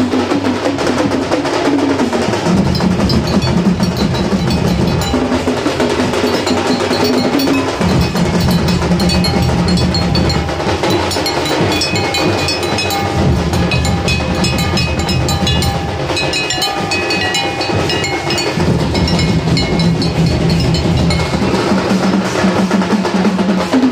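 Loud procession music from a brass band and DJ sound system, driven by fast, continuous drumming, with sustained low notes that shift every few seconds.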